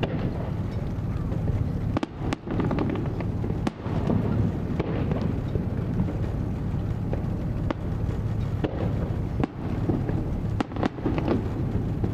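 Aerial fireworks going off: a string of sharp bangs and crackles over a continuous low rumble of bursts.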